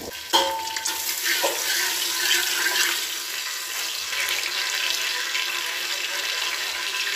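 Whole spices (bay leaves, cloves, cardamom, cinnamon) sizzling steadily in hot oil in an aluminium pressure cooker, with a spoon stirring them partway through.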